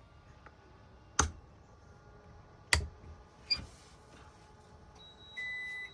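Three sharp clicks from a motorhome's electrical system as power is applied to the coach. About five seconds in, a steady electronic beep follows.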